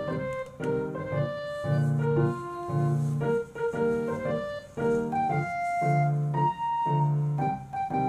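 Light background piano music: a melody of short notes over regularly spaced low notes.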